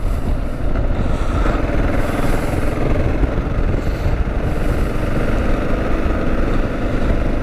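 Kawasaki KLR650's single-cylinder engine running, with wind noise on the rider's microphone.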